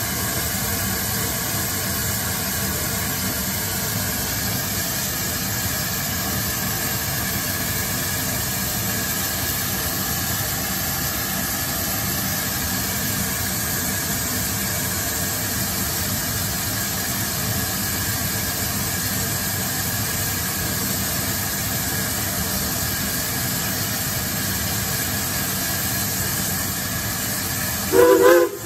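Steady hiss and rumble of a steam train underway behind the Shay geared locomotive. About a second before the end comes a brief, loud, wavering pitched sound.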